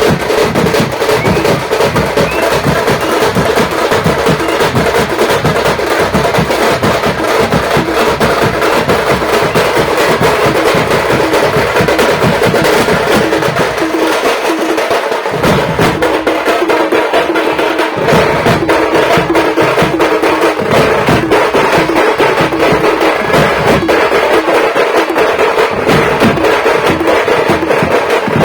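Music with fast percussion: rapid drum and wood-block-like hits over a continuous musical bed, the bass dropping out briefly about halfway through and again near the end.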